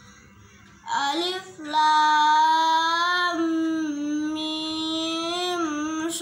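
A child's voice chanting an Arabic letter name in the long, drawn-out melodic style of Qur'an recitation: a short rising syllable about a second in, then one long held note lasting about four seconds.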